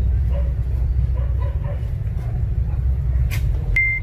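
A steady low rumble, with a single sharp click a little over three seconds in and a brief high beep just before the end.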